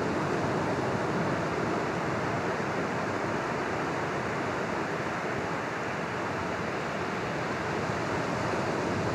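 Steady rushing noise of sea surf on the beach, with no distinct events.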